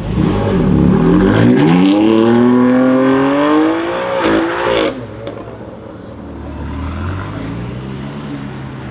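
Jaguar F-Type SVR's supercharged 5.0-litre V8 accelerating hard, its exhaust note rising steadily in pitch for about four seconds with a brief dip near the top. Just before five seconds in the sound drops off sharply to a quieter, lower engine note.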